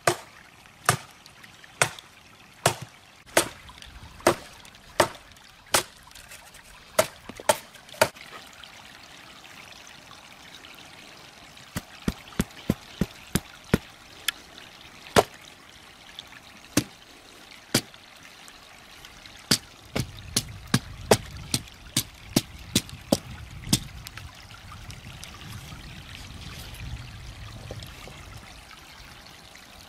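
Large knife chopping into a young mesquite branch resting on a wooden log: sharp knocks about once a second for the first eight seconds, then quicker runs of blows around the middle and again from about twenty to twenty-four seconds. Creek water trickles steadily underneath.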